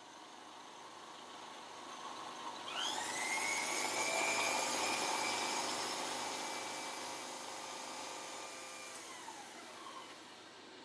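End mill on a manual milling machine cutting a step along a metal bar, machining a T-nut profile. A cutting whine comes in about three seconds in, is loudest around four seconds, then sweeps down and fades near the end as the cutter runs off the end of the bar.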